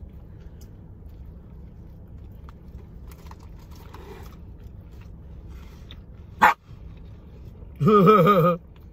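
A small Shih Tzu-mix dog gives one short sharp bark about six and a half seconds in, then a louder wavering vocal sound lasting under a second near the end. A steady low rumble of wind around the car lies underneath.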